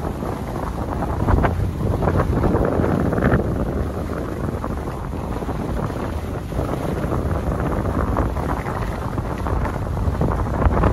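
Wind buffeting the microphone of a skier moving downhill, with the hiss and scrape of skis on groomed snow; an uneven rushing noise that swells and eases, with short scrapes.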